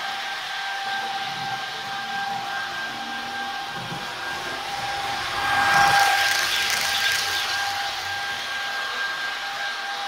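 H0 model Taurus electric locomotive's Nusser sound decoder playing a steady electric whine through its small speaker, over the running hiss of the model train on the track. The noise swells to its loudest about six seconds in as the train passes closest.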